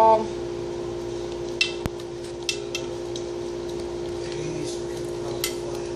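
Welsh corgi licking an already-empty plastic food bowl: scattered licks, clicks and knocks against the bowl, over a steady hum.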